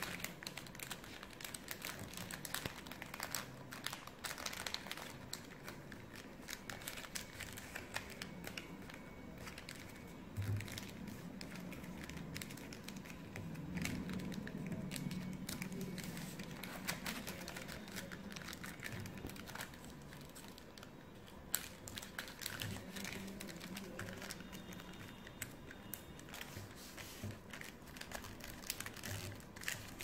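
A sheet of A4 paper crinkling and rustling as it is folded and creased by hand for origami, with many small crackles and a couple of soft knocks.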